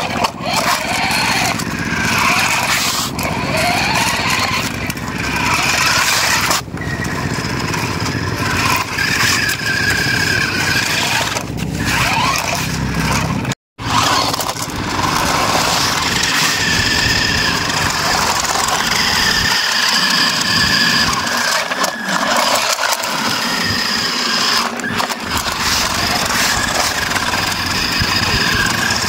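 Small electric motors and gearboxes of two toy RC cars whining under load as they pull against each other on a tow chain, with tyres scrubbing on concrete. The sound drops out briefly about halfway through.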